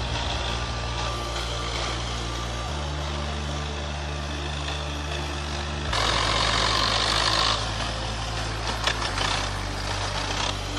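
A heavy truck's engine running steadily, with a brief rush of noise about six seconds in.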